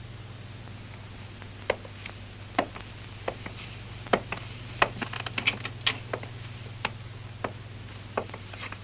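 A string of irregular, sharp light knocks and clicks, starting about two seconds in and coming thickest around the middle, over a steady low hum.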